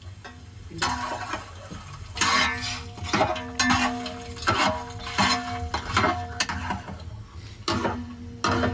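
Long metal ladle knocking and scraping against a huge metal cooking pot as chicken is stirred while it fries, about one or two clanks a second, the pot ringing on between strikes.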